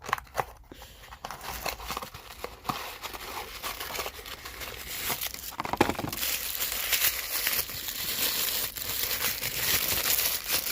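Packaging crinkling and crackling as a miniature McDonald's Happy Meal toy box is opened and its contents unwrapped by hand, getting louder in the second half.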